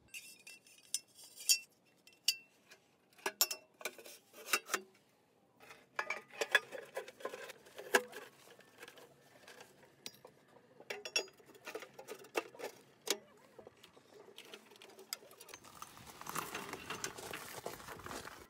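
Steel parts of a homemade ammo-can stove clinking and knocking together as they are handled and fitted into the can: a series of separate sharp knocks and rattles, with a longer scraping rustle near the end.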